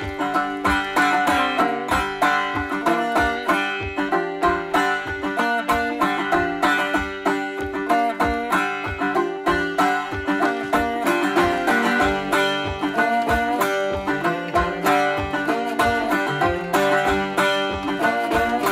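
Background music: a plucked-string tune with a steady beat.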